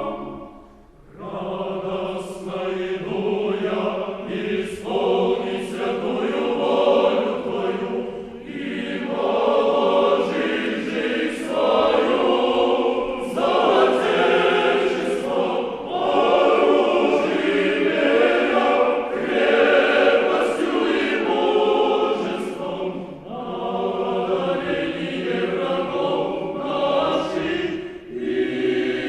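Mixed choir singing, coming back in after a short pause about a second in.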